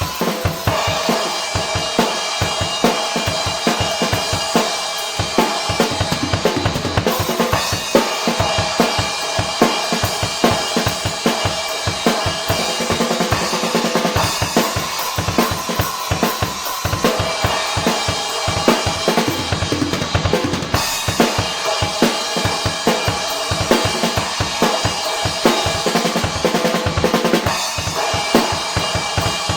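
Drum kit played in a steady, busy groove, with the Armada Achilles AXL cymbal ringing in a continuous wash over the kick and snare hits. The cymbal wash grows brighter twice, about a quarter of the way in and again past the middle.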